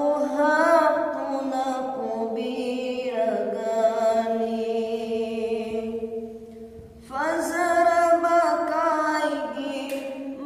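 A man's solo voice singing a Manipuri naat, an Islamic devotional poem, in long drawn-out phrases with ornamented, wavering held notes. The phrase fades out about six seconds in, and a new one begins about a second later.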